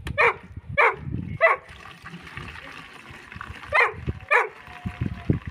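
A dog barks five short, high barks: three in the first second and a half, then two more about four seconds in. Between them, liquid splashes as blue mineral brew is poured from a bucket through a funnel into a plastic jug.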